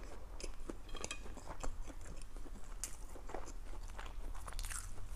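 A person chewing a mouthful of food close to a lapel microphone: a run of irregular small wet clicks and crackles.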